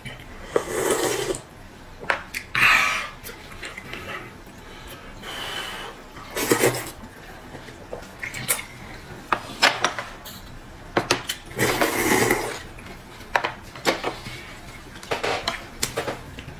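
A person slurping rice noodles and sipping broth from a paper cup: several long slurps of about a second each, with short clicks of chopsticks and tableware between them.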